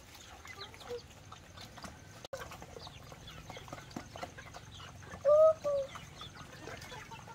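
Farmyard animal sounds: scattered faint chirps, with one louder short pitched call about five seconds in.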